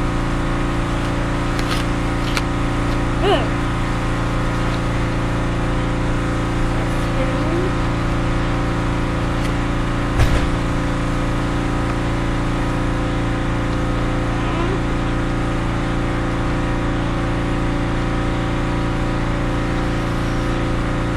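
A steady machine hum made of several held tones, unchanging throughout, with a single sharp knock about ten seconds in.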